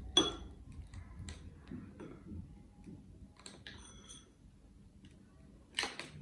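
A paintbrush clinking against a small paint bowl as it is dipped, a few sharp clicks with a short ringing tone. The loudest comes just after the start, more about four seconds in and near the end.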